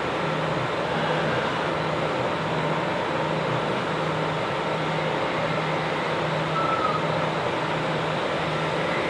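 Steady mechanical hum and noise, which the person filming takes to be circus machinery, with a constant low drone under it. A short faint high tone about seven seconds in.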